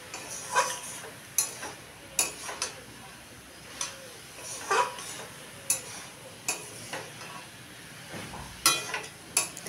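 Metal spatula scraping and knocking against a metal kadai as a thick, dry banana-flower curry is stirred, with strokes about once a second at an uneven pace. A faint sizzle runs underneath from the pan on the gas flame.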